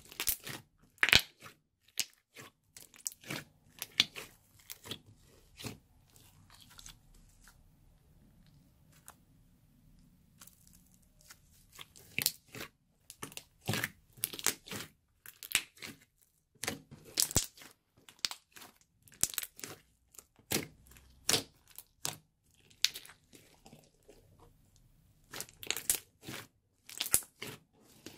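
Pink slime being squished, folded and stretched by hand, giving off irregular sharp pops, clicks and crackles. There is a quieter spell of a few seconds about a third of the way in, then the popping picks up again.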